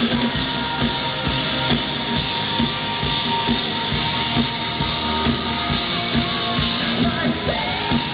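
Live rock band playing loudly, with a steady drum beat under a long held note.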